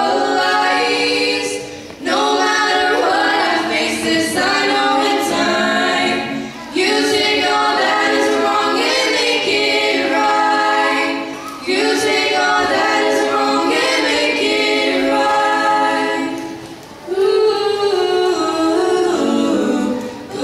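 Three female voices singing a cappella in close harmony into handheld microphones, in long held phrases with short breaths between them.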